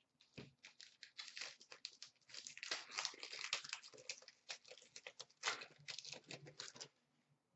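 Hockey card pack wrapper crinkling and tearing as it is opened by hand: a quiet run of dense crackles that stops shortly before the end.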